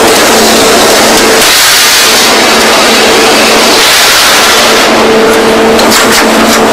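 Loud, steady machinery noise from a wire rod mill's coil baling machine: a dense hiss over a steady hum, with a few sharp clicks near the end.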